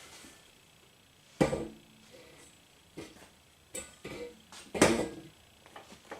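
Two sharp knocks with a short ring after each, about a second and a half in and again near five seconds in, with a few fainter clicks and taps between them.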